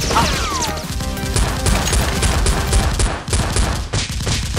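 Rapid gunfire sound effects, about four shots a second, starting about a second and a half in, over dramatic background music.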